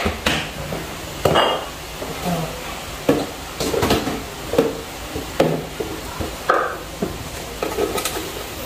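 Metal spoon and pot clinking and knocking now and then, short sharp knocks roughly every half second to a second, as sugar and seasonings are spooned over fish in the pot.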